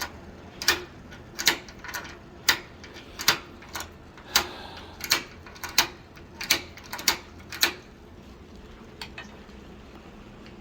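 Sharp metallic clicks of a mortise lock's mechanism being worked, about one every three-quarters of a second, stopping about eight seconds in.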